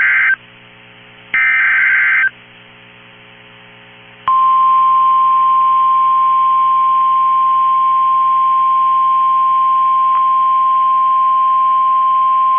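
NOAA Weather Radio Emergency Alert System broadcast: the end of one short burst of SAME header data tones, a second burst about a second and a half in, then, after a brief pause, the single steady 1050 Hz weather-radio alert tone, held from about four seconds in. Header and tone announce a Civil Emergency Message.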